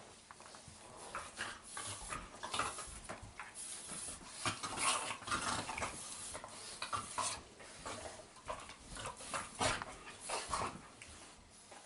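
Two dogs play-fighting on a blanket-covered couch: irregular scuffling and blanket rustling, with dog noises mixed in.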